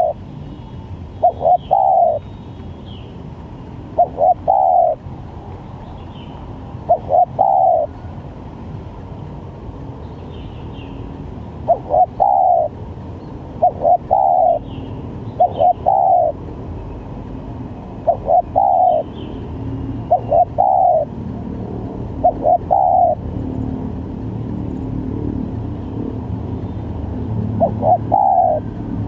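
Spotted dove (tekukur) cooing: short phrases of two or three low coos, repeated every second or two, with a few longer pauses between runs.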